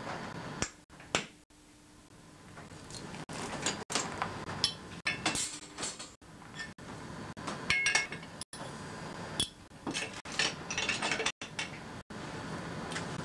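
Hand tools and steel parts clinking and tapping irregularly on a metal-strewn workbench, a run of short sharp metallic clicks and knocks.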